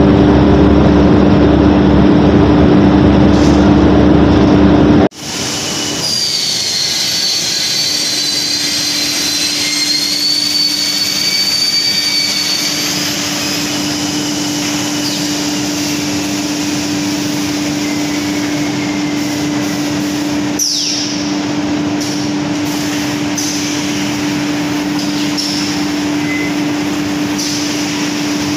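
Plywood double sizer trimming machine running steadily with a constant hum. A high whine comes and goes in the first half, with light clicks later on. Loud rough noise in the first five seconds cuts off suddenly.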